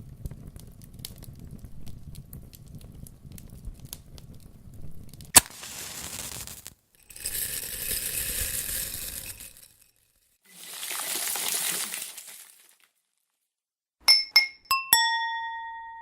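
A run of separate sound effects: a low crackling rumble, a sharp click, two bursts of hiss and a swelling whoosh, then near the end a quick series of short ringing glassy clinks.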